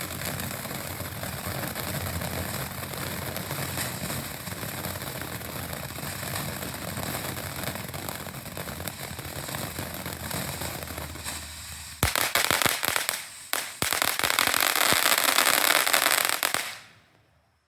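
Phantom Pixie Dust consumer firework fountain spraying with a steady dense hiss and crackle. About twelve seconds in it jumps louder into a dense crackling finale, then dies out near the end.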